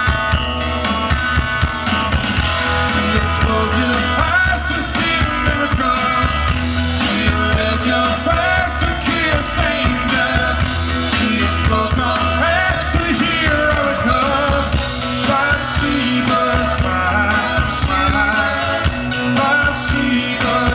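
Live rock band playing a song: a male lead voice singing over electric guitar and a drum kit.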